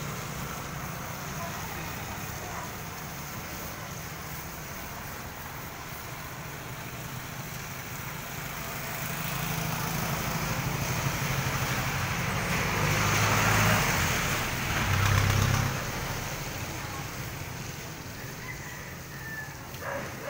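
Street traffic, with a motor vehicle passing close and getting louder through the middle, loudest about two thirds of the way in before fading again.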